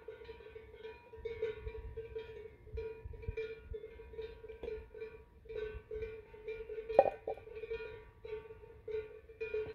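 Cowbells on grazing cows clanking irregularly and ringing on, with one sharp knock about seven seconds in.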